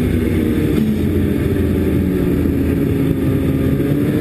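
Snowmobile engine running steadily under way, holding an even pitch as the sled crosses the snow.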